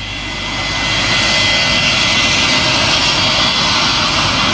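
Recorded sound effect of a jet airliner taking off: the engine noise rises over the first second, then runs loud and steady with a high whine.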